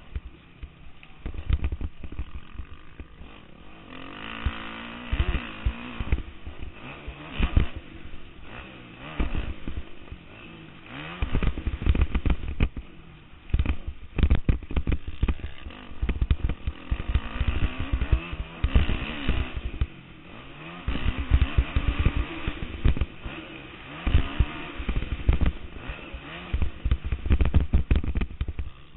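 Dirt bike engine revving up and falling off repeatedly as the bike is ridden hard around a motocross track, heard from a helmet-mounted camera. Frequent low thumps on the microphone run through the engine sound.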